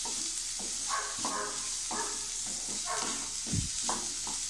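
Diced potatoes and onions sizzling in hot oil in a nonstick pan while a wooden spatula stirs and scrapes them in short strokes, two or three each second, with a dull knock about three and a half seconds in.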